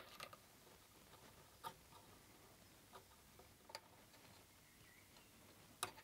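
Near silence broken by a handful of faint, sharp clicks and taps: a soldering iron tip and a wire being worked against a metal chassis ground lug while desoldering a burnt resistor.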